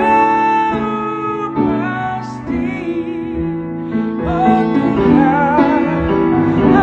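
A man singing a spiritual song over piano or keyboard accompaniment, holding long notes with vibrato.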